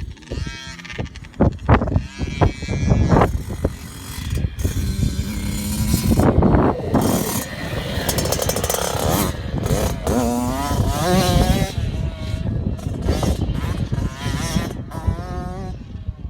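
Dirt bike engine running and revving, its pitch rising and falling repeatedly.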